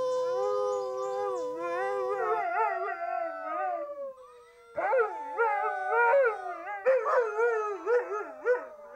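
Alaskan Malamute howling along with two children who howl with him. Long, held howls fade out about four seconds in, then after a short break come a second round of wavering, overlapping howls.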